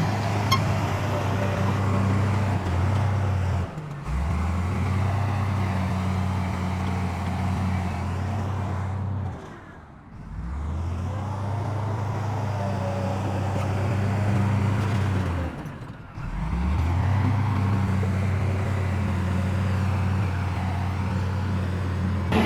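Heavy diesel engine of earthmoving machinery running steadily with a low hum. The sound drops out briefly three times, about every six seconds, and comes straight back.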